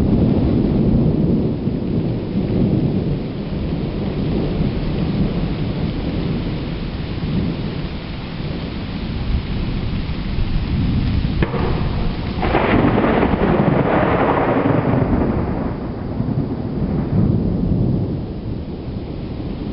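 Thunderstorm: steady rain with a continuous rolling rumble of thunder. About twelve seconds in, a sudden sharp thunderclap cracks and then rumbles away over a few seconds.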